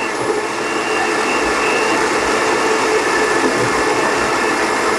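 Countertop blender running steadily at speed, chopping chunks of ginger, unpeeled orange and lemon in water.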